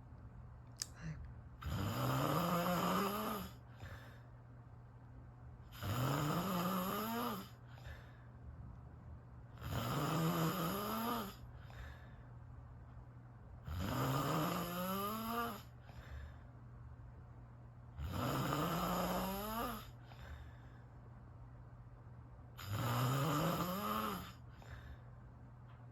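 A person snoring in their sleep: six loud snores, about one every four seconds, each lasting under two seconds with a pitch that rises through it.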